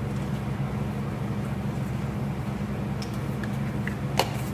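Steady low mechanical hum of a kitchen appliance, with a few light ticks and one sharp clink about four seconds in as salt is spooned from a plastic jar into a cooking pot.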